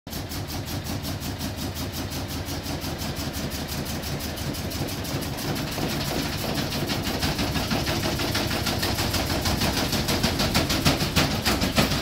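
Bosch front-loading washing machine running, its drum turning with a fast, even rhythmic beat that grows louder from about halfway through.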